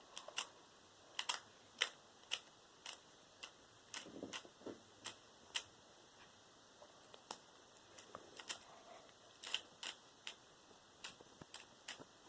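A 2x2 Rubik's Cube being turned by hand during a speed solve: faint, irregular clicks of its plastic layers turning, about one or two a second, with a short lull near the middle.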